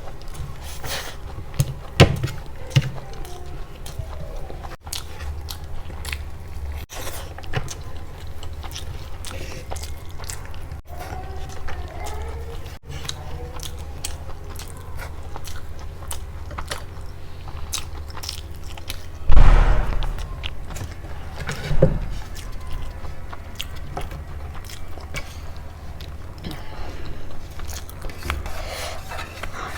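A person chewing and biting food close to the microphone, with soft wet clicks throughout and two louder noisy bursts about two-thirds of the way through.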